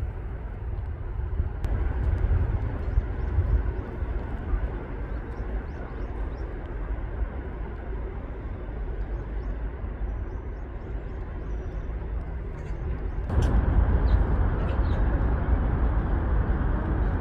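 Steady low outdoor rumble with no clear single source, growing louder about 13 seconds in; a few faint ticks and a brief high chirp sit on top.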